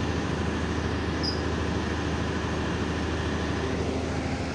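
Denyo diesel generator set of about 60 kVA running steadily inside its enclosure, a constant low engine drone.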